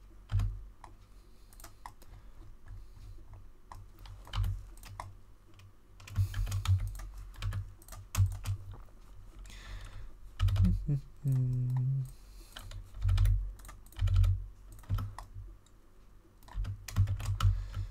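Computer keyboard keystrokes in irregular clusters of clicks, sparse at first and busier in the second half, with dull low knocks under the clicks.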